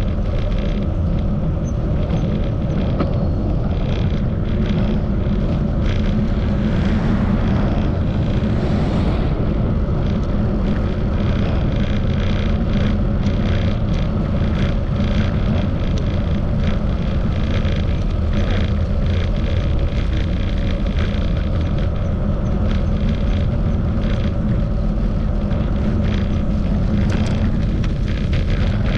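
Steady low rumble of wind buffeting the microphone while riding a bicycle, with tyre and road noise and a dense scatter of small crackles over it.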